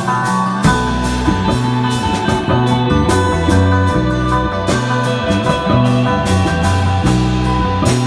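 Live rock band jamming an improvised instrumental: electric bass holding slow, changing low notes, electric guitar and a cigar-box guitar playing sustained lines, and a drum kit keeping time with cymbal strikes.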